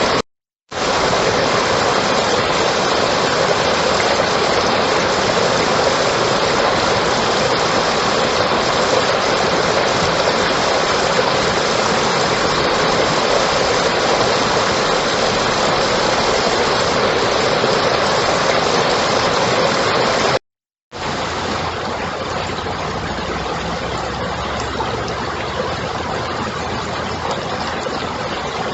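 Steady rushing noise with no distinct events, cutting out briefly near the start and again about two-thirds through; after the second break it is slightly quieter, with a faint low rumble.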